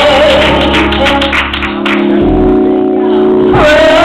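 Live gospel music: a woman singing into a microphone over sustained accompaniment chords. Her voice holds a note at the start, the low bass drops out about halfway, and the voice comes back in near the end.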